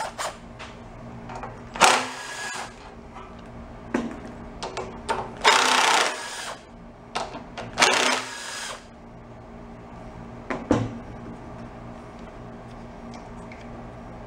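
Cordless impact driver rattling in three short bursts, backing out the bolt that holds a small-engine carburetor's float bowl, with a few sharp clicks from handling the parts between bursts.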